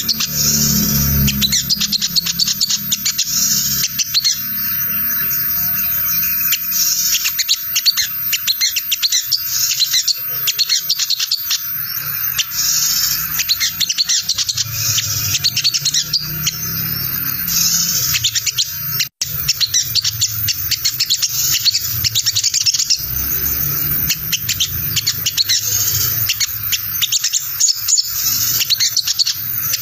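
Olive-backed sunbird (sogon) giving its rapid, chattering ngriwik twitter, a dense stream of high notes with only a very short break about two-thirds of the way through.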